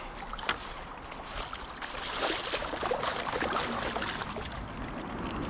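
Water splashing as a carp thrashes in a landing net at the water's edge, loudest in the middle stretch, with a single sharp click about half a second in.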